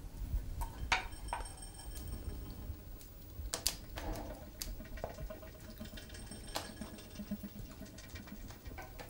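Pot cooking over an open wood fire: scattered sharp crackles and small clicks at irregular intervals over a low steady rumble.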